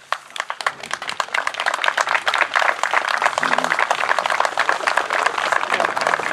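A crowd applauding: many hand claps that swell quickly over the first couple of seconds and then keep on steadily.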